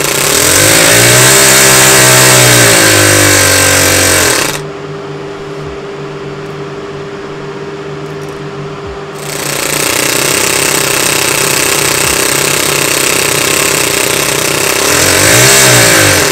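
Toyan FS-S100 four-stroke model engine running fast under the load of a wooden Prony brake clamp on its shaft, its pitch rising and falling as the clamp is adjusted. About four and a half seconds in it drops to a quieter, steadier run, then comes back up to full speed about nine seconds in.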